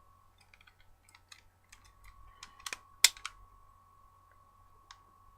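Plastic clicks and snaps from a toy Power Rangers morpher being handled, its buttons and moving parts pressed while trying to get it to make sounds; the loudest snap comes about three seconds in. A faint steady thin tone runs underneath.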